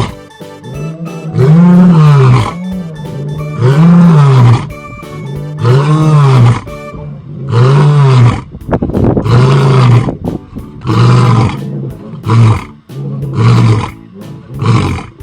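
Lion roaring: a bout of deep roars about two seconds apart that turn into shorter, quicker grunts toward the end.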